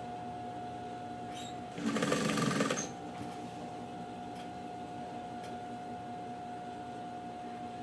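Electric sewing machine stitching in one short burst of about a second, about two seconds in, sewing through strips of knit fabric. A faint steady hum and a few light clicks are heard around it.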